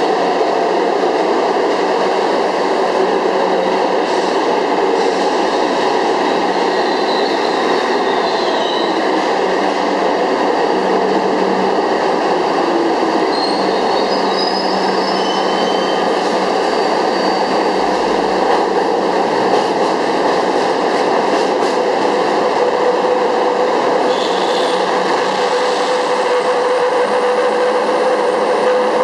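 New York City subway work train running through a station, a steady loud rumble of wheels on rail that echoes in the tunnel, with faint high wheel squeals now and then. Near the end a passenger subway train passes on the nearer track, adding a steady motor whine.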